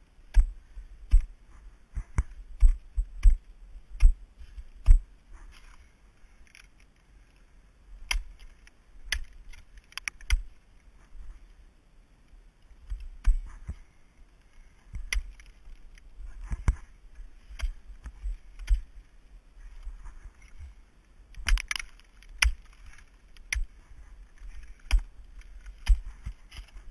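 Ice axe picks and crampon front points striking and kicking into ice, an irregular run of sharp thunks and chips in quick clusters with short pauses between moves.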